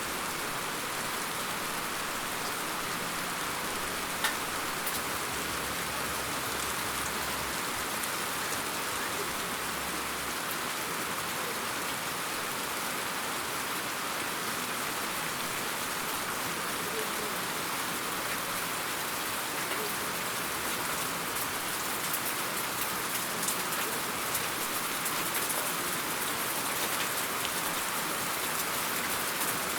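Steady rainfall, an even hiss of rain with scattered individual drop ticks.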